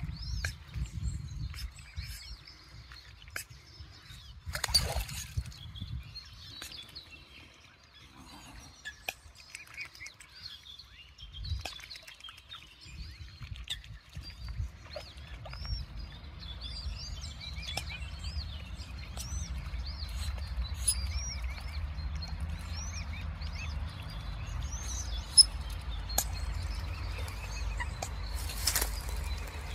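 Small birds chirping and singing in the background, many short high calls throughout, over a low rumble that grows heavier in the second half. Two brief loud rushes of noise break in, one about five seconds in and one near the end.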